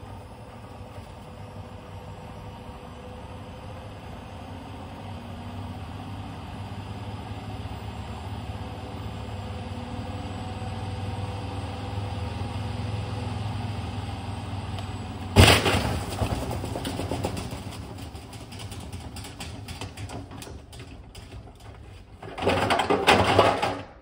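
Front-loading washing machine drum running with the door open, its motor hum and whine slowly rising in pitch as it speeds up. About 15 s in there is a sudden loud bang followed by rattling and clatter, the drum paddles being smashed, and near the end a second burst of loud clattering.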